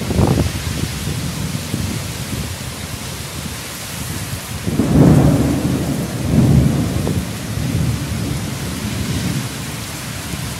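Heavy rain pouring steadily on trees, with deep rumbles of thunder swelling twice about halfway through.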